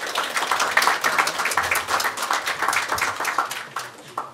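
Audience applauding: a dense patter of hand claps that swells quickly and dies away near the end.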